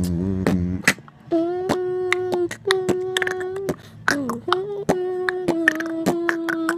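Beatboxing by mouth: held hummed notes lasting about a second each, broken up by sharp percussive clicks and snares. It opens with a falling hummed slide.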